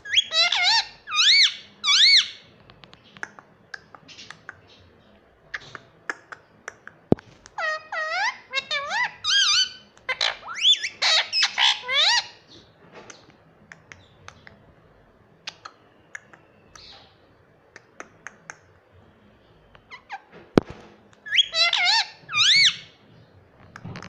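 Indian ringneck parakeet calling: bouts of high, repeated arching calls at the start, through the middle and near the end, with scattered sharp clicks in between.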